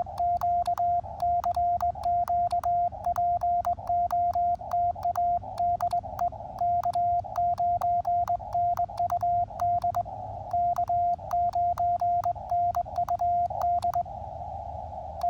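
Morse code (CW) sent by hand on KXPD3 paddles used as a cootie key, heard as the Elecraft KX2's steady beeping sidetone, with the paddle contacts clicking at each element over a receiver's band hiss. The sending stops about 14 seconds in, leaving the hiss, with one short beep near the end.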